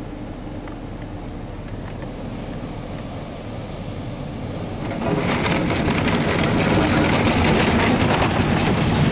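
Ryko Softgloss Maxx rollover car wash brushes and water working over a truck, heard from inside the cab: a steady wash of noise that gets clearly louder about five seconds in as the brushes press against the body and scrub it.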